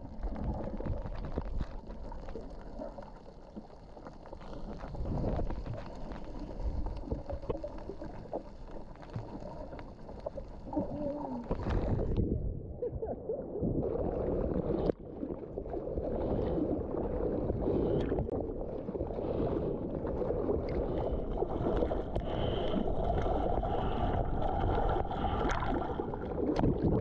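Water rushing and wind buffeting the microphone of a mouth-mounted GoPro while surfing. About twelve seconds in, the sound drops to a low, muffled rumble for about two seconds before the rush returns.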